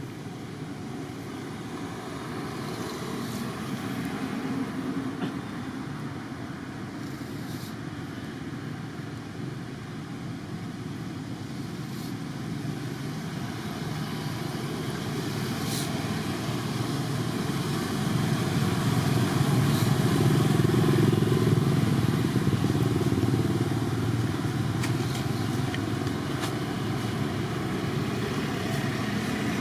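A motor vehicle engine running, growing gradually louder to its loudest about two-thirds of the way through, then easing off a little.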